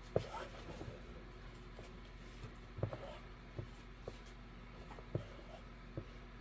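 Rotary cutter blade rolling through quilted fabric against a cutting mat, a faint scratchy cutting sound, with a few short soft taps scattered throughout.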